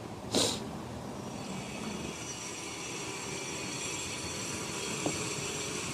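A steady, droning hum that slowly builds from about a second in, with a brief rustle near the start and a light knock near the end.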